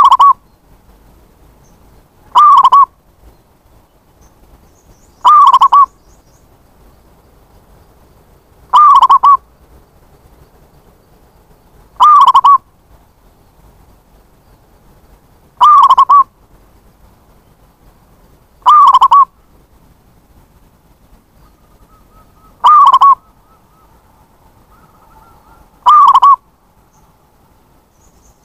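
Zebra dove (perkutut) giving its short cooing call over and over, about every three seconds, nine times, each call brief and loud.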